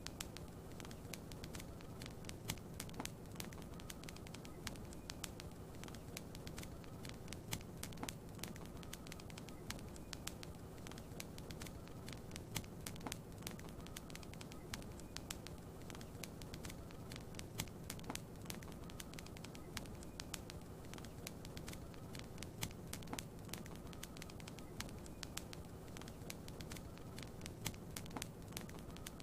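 Wood fire crackling in a fireplace, with frequent small sharp pops and snaps over a steady soft hiss.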